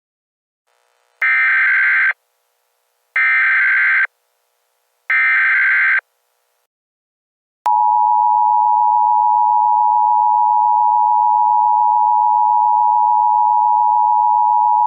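Emergency Alert System tones: three roughly one-second bursts of SAME digital header data, buzzy and chirping, then about eight seconds in the steady two-note EAS attention signal starts and holds, announcing a new alert.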